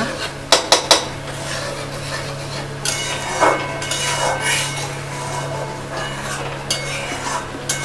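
Metal spatula knocking and scraping against a metal kadhai while stirring frying masala paste, with several sharp knocks about half a second in, then irregular scrapes.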